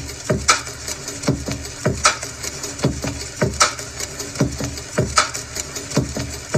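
Background music with a slow, steady electronic beat: deep kick drums that drop in pitch, roughly 77 to the minute, with a crisp snare-like hit on every second beat.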